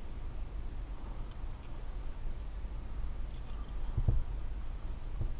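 Faint light clicks and ticks of thin coat-hanger wire being handled and bent by hand, with a dull thump about four seconds in.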